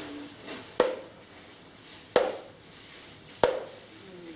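Magnetic darts hitting a magnetic dartboard: three sharp clacks, evenly spaced a little over a second apart.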